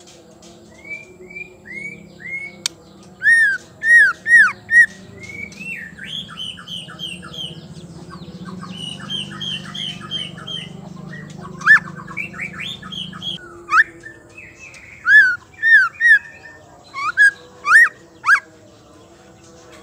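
White-rumped shama singing, by the uploader's account a female's song of the kind used to rouse male shamas into singing. Varied whistled phrases and quick chattering are broken by loud, sharp notes that swoop downward, coming in runs of three or four.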